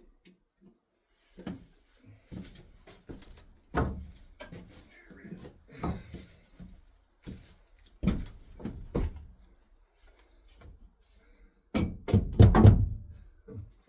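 Irregular wooden knocks and thuds as a glued wooden crossmember is knocked and pushed into place in an RV's front frame. It ends in a louder run of quick knocks.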